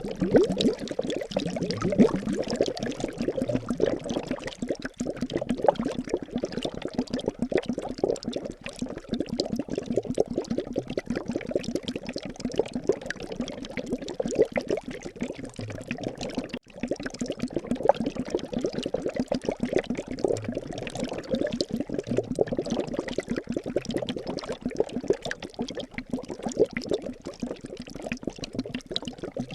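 Liquid bubbling steadily in a dense stream of small rapid pops, with a brief break about halfway through.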